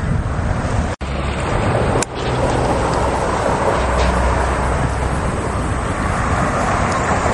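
Steady outdoor rumble of wind on the microphone mixed with road traffic noise, with a sharp dropout about a second in.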